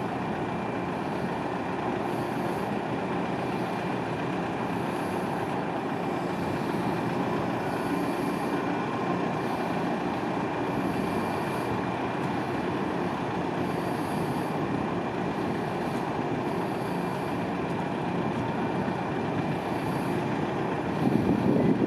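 Steady drone of heavy engines running, with a thin high whine held throughout, swelling louder near the end.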